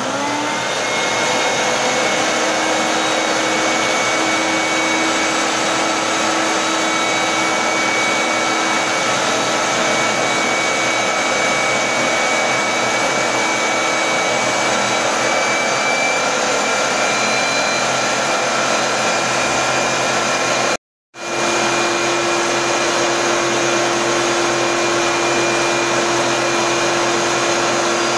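Walita food processor motor running steadily, chopping two cups of parsley with no water added. A steady whine rides over the motor noise, with a brief break about three-quarters of the way through before it runs on.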